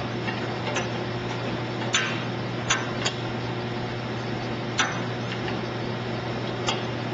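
Sharp metallic clicks of hydraulic hose fittings being uncoupled and swapped by hand on a texture sprayer's hydraulic pump, about six at irregular intervals, over a steady low hum.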